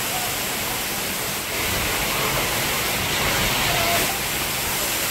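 Heavy rain pouring steadily, a little louder from about a second and a half in.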